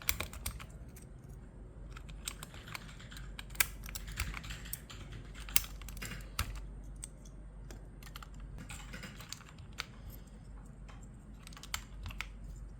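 Irregular clicks and clacks of plastic on a mechanical keyboard as it is being handled, one or two a second, a few louder than the rest.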